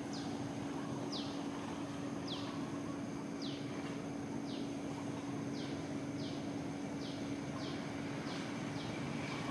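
A bird calling a short, high, down-slurred note over and over, about once a second and sometimes two close together, over a steady low hum.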